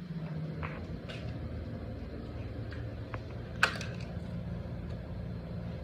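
Light knocks of notched wooden joist pieces being handled and fitted together, with one sharper knock about three and a half seconds in, over a steady low hum.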